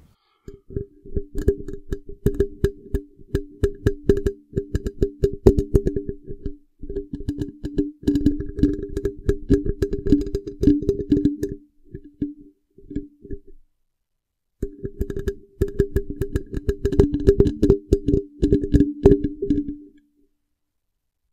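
Fingers tapping rapidly on the body and grille of a condenser microphone, each run of taps carrying a low ringing tone. The tapping comes in runs with short pauses, and stops about a second before the end.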